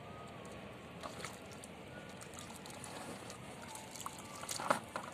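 Shallow water sloshing as people wade and work a net at its edge, with a few small clicks about a second in and a brief, louder splash near the end.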